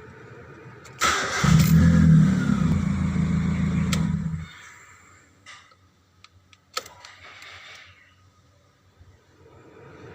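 Proton Persona 1.6's four-cylinder engine and leaking exhaust come in suddenly and loudly about a second in, run hard for about three and a half seconds, then drop away. A couple of sharp clicks follow. The engine is being run to show its exhaust leak.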